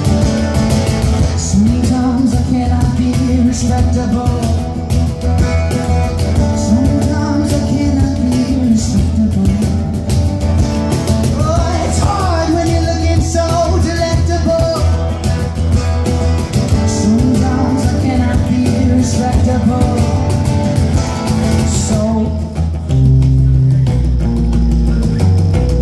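Band playing an acoustic rock song: guitars with a voice singing over them.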